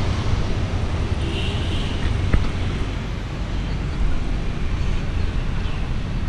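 Steady low rumble of street traffic, with a single sharp click about two and a half seconds in.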